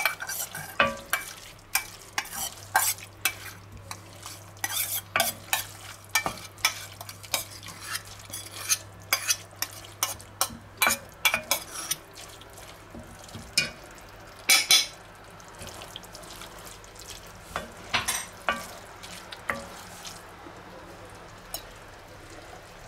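A wooden spoon stirring and scraping minced-beef ragù in an enamelled cast-iron pan while it sizzles, with a metal fork clinking and scraping inside a small metal bowl. The clicks and scrapes come irregularly and thin out near the end.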